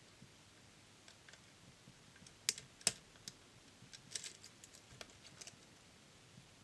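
Faint metallic clicks of a lock pick working the pins of a DOM System D dual-row pin lock cylinder: two sharper clicks about two and a half and three seconds in, then a scatter of lighter clicks.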